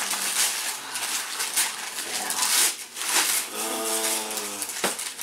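Wrapping paper tearing and crinkling in repeated rustles as Christmas presents are unwrapped. A short held tone sounds for about a second near the end, followed by a sharp click.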